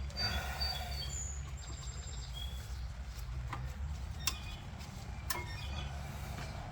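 A few sharp clicks as rear brake pads are worked out of the caliper bracket, over a low steady hum, with birds chirping.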